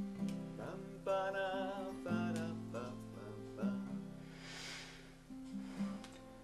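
Background music led by an acoustic guitar, with plucked and held notes. A wavering melody line comes in about a second in, and a short hissing swell sounds a little before the five-second mark.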